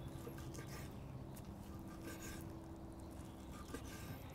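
Quiet background with a faint steady hum and a few faint light ticks, one a little clearer near the end.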